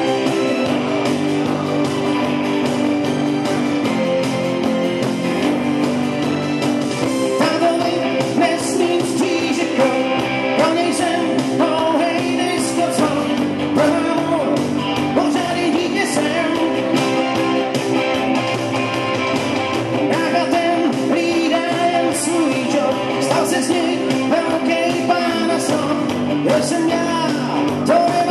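A live rock band playing electric guitar and bass guitar, with a man singing lead vocals that come in several seconds in.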